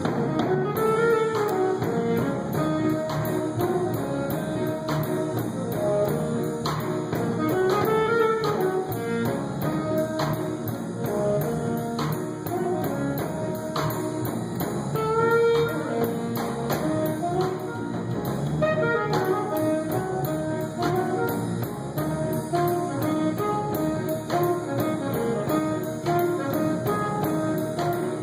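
Live jazz band playing a jazz standard, a horn carrying the melody over a rhythm section with drums.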